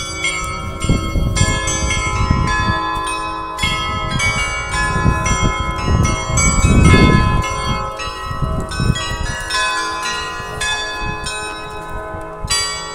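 A set of tuned bells playing a melody for the daily noon chime, the strikes following quickly one after another over each other's ringing. A low rumble swells briefly around the middle.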